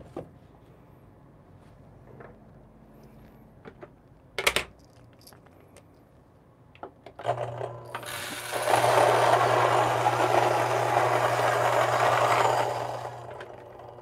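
Fellow Ode Gen 2 flat-burr coffee grinder grinding a single dose: its motor starts humming about seven seconds in, beans go into the running grinder and are ground for about five seconds, then the grinding dies away near the end. A single sharp knock comes about four seconds in.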